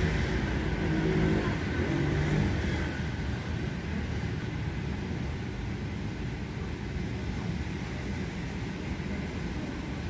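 Steady outdoor road-traffic noise, somewhat louder in the first two or three seconds, then an even background hum.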